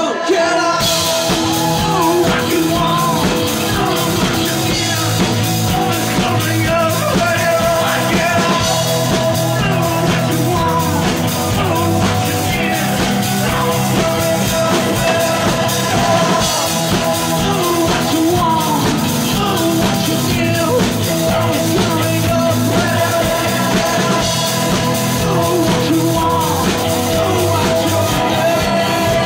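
Live rock band playing, with a man singing into a microphone over a steady drum beat and guitars.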